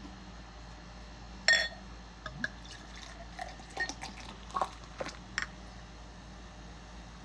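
Nitro milk stout being poured from a bottle into a cup. There is a sharp ringing clink about a second and a half in, then a run of small clinks and drips as the beer goes in.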